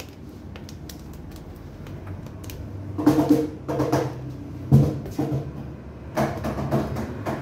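Marker pen squeaking and scratching across plastic wrap on a cardboard box in short strokes as letters are written, louder from about three seconds in, with one sharper knock near the middle.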